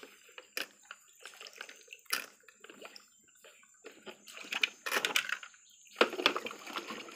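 Water sloshing and splashing in a small water-filled basin, with scattered clicks and knocks from a plastic toy fire truck and its ladder being handled; the splashing grows louder about five and six seconds in as the truck is brought down to the water.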